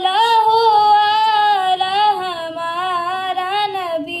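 A boy singing a naat unaccompanied into a microphone, drawing out long wavering notes that end just before the close.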